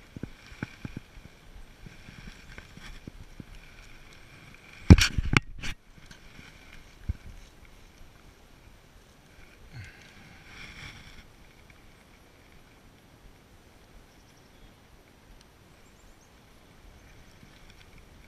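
Handling noise on a chest-mounted camera as a small fish is landed and unhooked on a gravel riverbank. There are faint rustles and ticks, a cluster of loud knocks and bumps about five seconds in, and one more knock a couple of seconds later.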